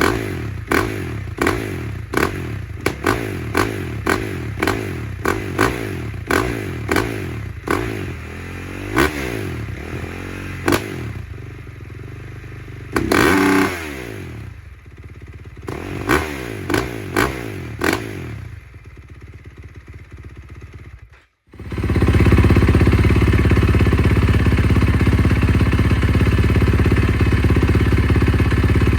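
KTM 450 SMR's single-cylinder engine being blipped in quick, short revs, a little under two a second, each dropping back toward idle, with one longer rev partway through. It settles to a quieter idle, then, after a brief cut, runs loud and steady.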